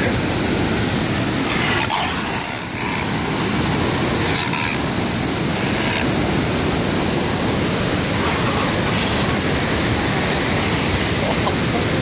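Steady loud rush of moving water, with a few faint ticks of handling on top.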